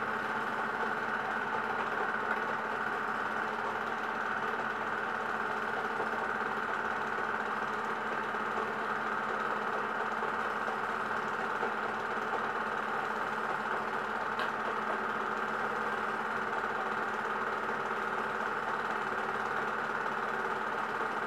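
Cine film projector running: a steady mechanical hum and rattle from its motor and film transport, unchanging throughout.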